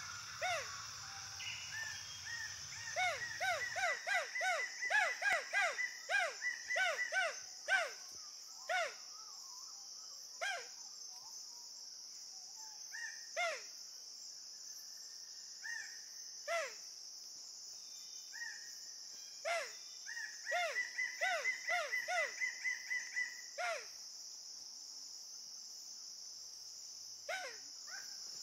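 A steady, high-pitched insect drone, with a bird giving short, falling call notes: two quick runs of several notes a second, and single calls spaced a few seconds apart in between.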